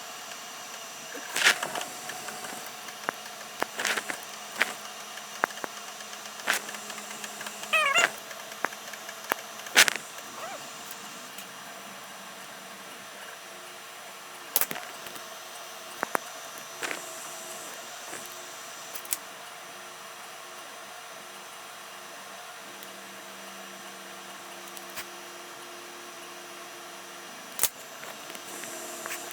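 Scattered sharp clicks and taps at uneven intervals, with a short wavering pitched call about eight seconds in.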